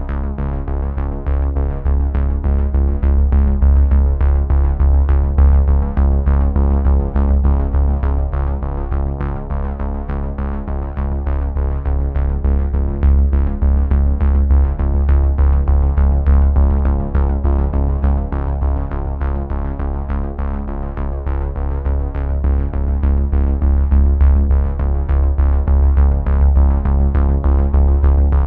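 Background synthesizer music with a quick steady pulse over sustained bass notes.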